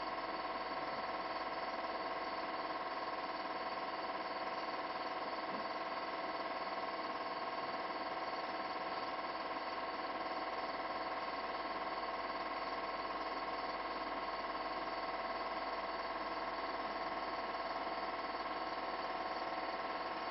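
Steady, unbroken buzzing whine of a motor running, made of several fixed pitches at once, most likely the film projector showing the cine film.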